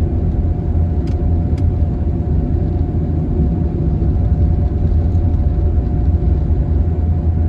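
Steady low rumble of a vehicle driving at road speed, heard from inside the cabin, with a faint steady hum above it. Two faint ticks come just after a second in.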